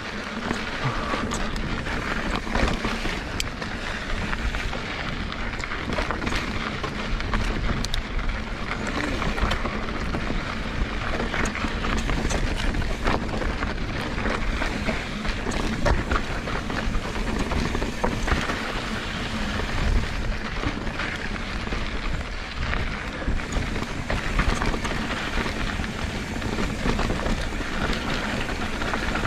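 Mountain bike rolling over a rocky dirt trail: a steady rumble of tyres on dirt and stones, with frequent sharp clicks and knocks from the bike rattling over rocks.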